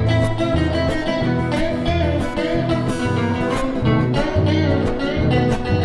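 Instrumental break in a pop song: guitar playing over a pulsing bass line and a steady beat, with no singing.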